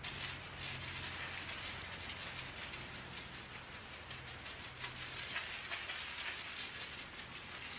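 Greenworks 2000 PSI electric pressure washer spraying water hard onto a concrete driveway: a steady hiss of spray, with the pump motor's low hum underneath.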